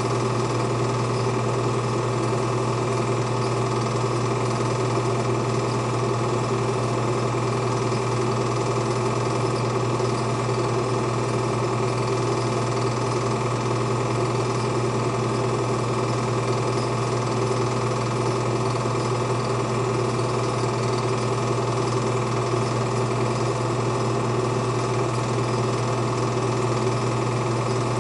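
Film projector running during the reel's transfer: a steady mechanical whirr and clatter with a low hum, unchanging throughout.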